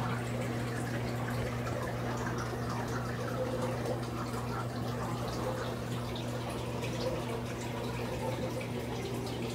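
Aquarium water trickling and dripping, over a steady low hum.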